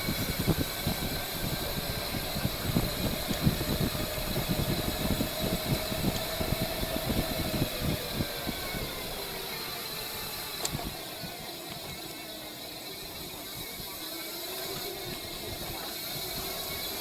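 Wind buffeting the microphone of a moving bicycle, heavy gusts for the first half that ease off about halfway through, with a motor vehicle's engine humming and gliding in pitch underneath.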